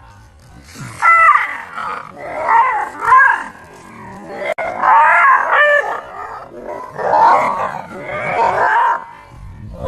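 A dog vocalising in several loud outbursts, with pitch bending up and down, seemingly scared or agitated by a prank.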